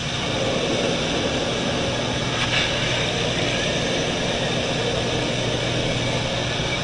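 Single-engine light aircraft's engine and propeller drone, heard from inside the cabin with a side window open: a loud, steady rushing noise over a low engine hum.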